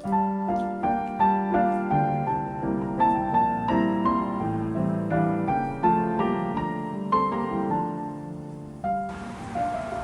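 Soft background piano music: a slow melody of single struck notes, each ringing out. About nine seconds in, a steady background hiss comes in under the music.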